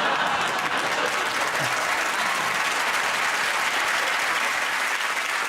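Studio audience applauding and cheering, a dense steady clapping.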